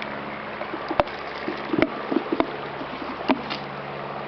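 Concrete ingredients being put into a mixing bucket: a handful of sharp, irregular knocks and taps over a steady background hiss with a faint low hum.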